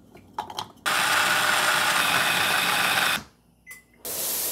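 Small electric food chopper: a few light knocks as pieces drop into its bowl, then the motor runs steadily for about two seconds and stops. Near the end a single short beep from a microwave keypad, followed by a steady rushing noise.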